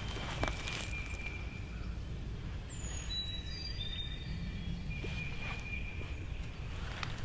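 Woodland ambience: a steady low background rumble with faint, thin bird calls held for about a second, once near the start and again about five seconds in.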